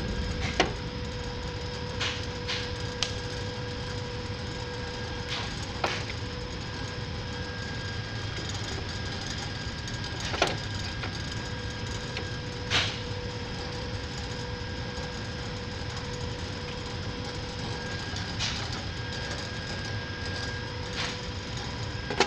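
Lathe headstock speed-selector levers being shifted between gear positions, giving scattered clicks and clunks over a steady machine hum.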